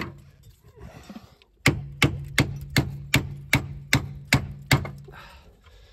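Hammer blows on the seized rear upper bush bolt of a Range Rover L322's rear suspension, hitting it to shock the rusted bolt loose. One blow, then after a pause a run of nine fast blows, about two and a half a second, with a low steady ring under them.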